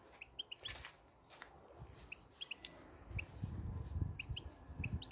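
Goldfinch giving short, high chirping notes in small clusters of two or three, with a low rumbling noise underneath from about halfway through.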